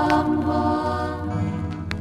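Music: a song with long held vocal notes over a steady low accompaniment.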